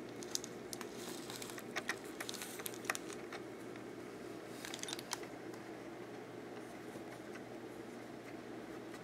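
Faint small clicks and scrapes of a hex key fitting set screws into the shaft coupler on a small electric motor, clustered in the first five seconds, over a steady low hum.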